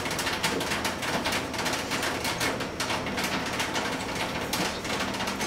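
Black felt-tip marker drawing on paper: a quick, irregular run of short scratchy strokes.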